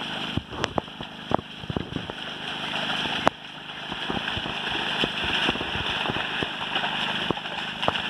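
Hooves of a pair of Ongole bulls and their plough sloshing and splashing irregularly through flooded paddy mud, over a steady rushing background noise.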